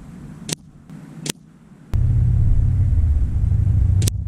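Air Arms S510 Ultimate Sporter .177 PCP air rifle firing slugs: four short sharp cracks about a second apart, the third fainter. From about two seconds in, a loud low rumble runs under them.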